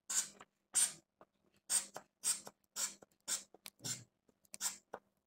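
Rubber inflation bulb of a mercury sphygmomanometer squeezed repeatedly, about two pumps a second, each giving a short hiss of air through the bulb's valve as the cuff is pumped up.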